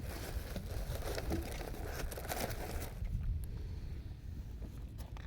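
Wind buffeting the microphone in a steady low rumble, with scattered rustles and light taps during the first three seconds.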